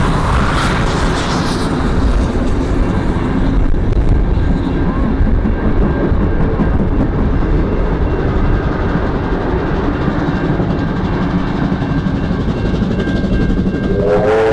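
Passenger carriages of a steam-hauled vintage train rolling past on the rails: a steady, loud rumble with wheel clatter.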